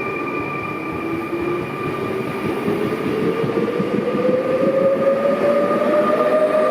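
SNCF Z 20900 double-deck electric multiple unit pulling away, its traction motor whine rising steadily in pitch as it gathers speed, over the rumble of the wheels. A steady high tone holds alongside, part of what the uploader calls a strange noise from the rear power car.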